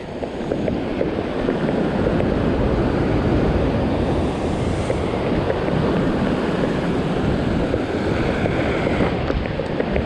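Ocean surf breaking and washing over a rock ledge, a steady rush, with wind buffeting the microphone.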